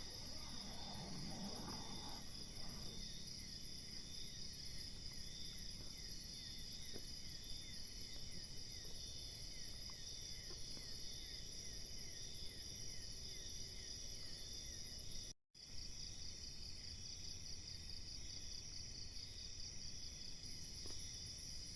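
Insect chorus of crickets, several steady high trills layered on one another. The sound cuts out completely for a moment about two-thirds of the way through.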